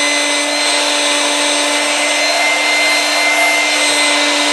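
Electric 12V two-stage inflatable pump's centrifugal fan stage running steadily, a constant motor hum with airy whirring over it. Its outlet is plugged, so the fan moves little air and draws less current.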